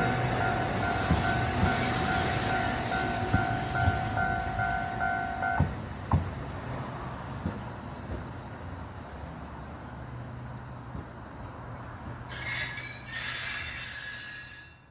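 Fukui Railway train passing a level crossing. The crossing's warning bell rings with a steady tone and a pulsing one, then stops about six seconds in, while the wheels knock over the rail joints. Near the end, a loud high-pitched wheel squeal on the rails lasts about two seconds.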